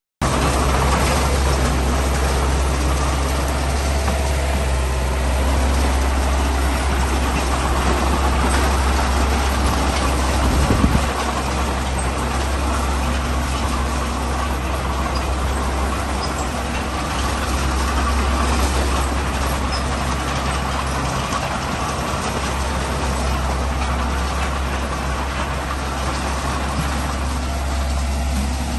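Heavy diesel engine of a construction machine running steadily with a deep rumble, with a brief clunk about eleven seconds in.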